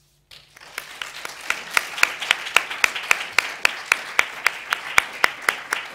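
Audience applauding, starting a moment in and swelling, with one nearby pair of hands clapping loudly and evenly at about five claps a second above the rest.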